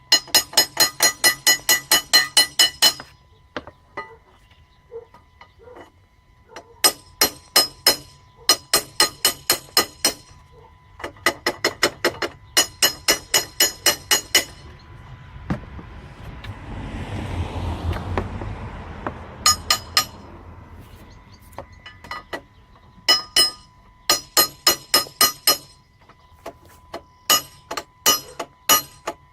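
Runs of rapid metallic taps, several a second and ringing, as a steel pry bar is knocked against a Citroen C2's starter motor. The knocks are meant to jar its probably worn brushes back into contact with the armature. A low rumble swells and fades in the middle.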